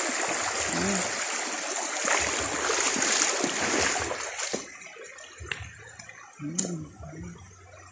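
Creek water running and splashing, fading out about four and a half seconds in. After that come a few sharp crunches of footsteps on loose gravel.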